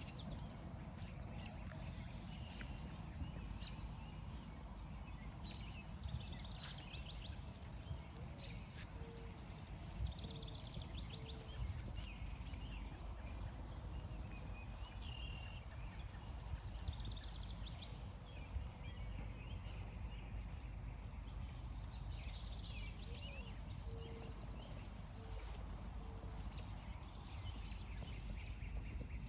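Several songbirds singing in woodland, one repeating a fast, even, high trill three times, with scattered chirps and a few soft low notes, over steady outdoor background noise and light footsteps.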